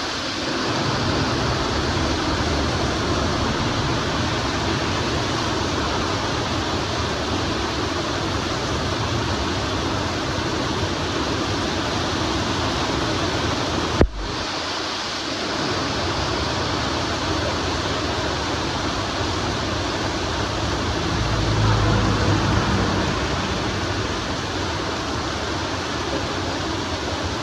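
Steady, even rain pouring down. A single sharp click comes about halfway through, and a low rumble swells briefly a little later.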